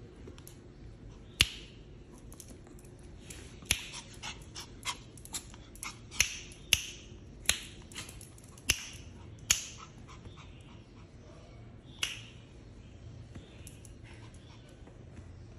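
Small white Pomeranian-type dog giving a dozen or so short, sharp yaps at irregular intervals, most of them bunched between about four and ten seconds in, with one more near twelve seconds.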